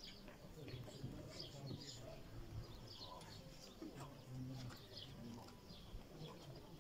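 Faint ambience of small birds chirping here and there, over short low hums.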